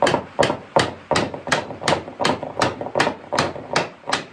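Steady hammering on wood, sharp blows at an even pace of about three a second, stopping shortly before the end.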